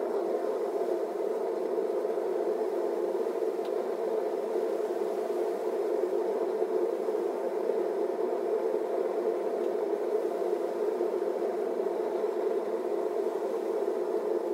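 Homemade propane blacksmith forge running, its burner giving a steady, even rushing noise.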